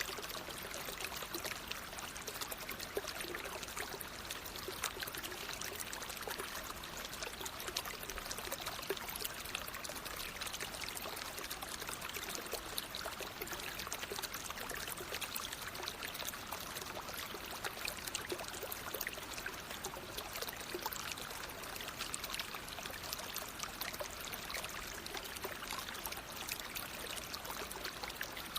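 Natural flowing water: a steady rush with fine splashing and trickling, unchanging throughout.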